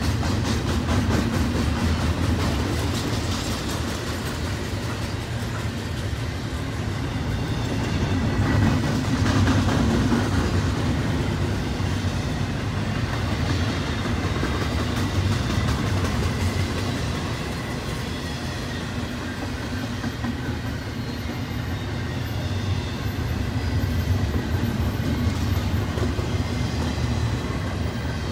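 Intermodal freight train's cars rolling past, a steady rumble of wheels on rail with rapid clicking, swelling and easing slightly as the cars go by.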